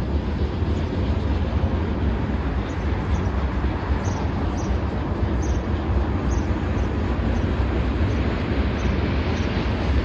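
Freight train cars rolling past, a steady low rumble with the noise of the wheels on the rails. A run of faint high clicks, about two a second, comes through from about three seconds in to near the end.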